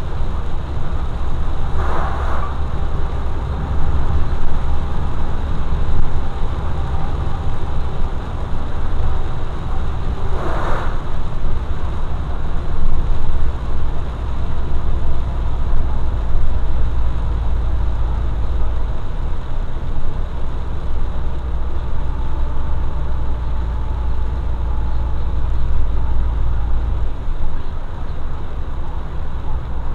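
Steady low rumble of engine and tyres heard from inside a vehicle driving on a wet highway, with two short swishes of oncoming vehicles passing, about two seconds in and about ten seconds in.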